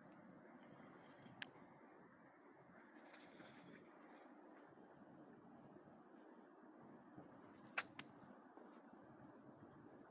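Near silence with a steady high-pitched trill, broken by a few faint sharp metal clicks of a flat-blade screwdriver working the clutch lock washer tab straight, once about a second in and again near eight seconds.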